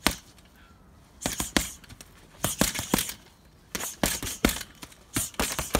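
Gloved punches landing on a hanging heavy punch bag, thrown in quick flurries of two to four blows with short pauses between.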